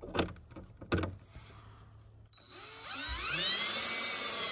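Cordless drill with a Torx bit spinning up with a rising whine about two and a half seconds in, then running steadily as it drives a self-tapping screw into a snowmobile skid plate. Two sharp clicks come in the first second.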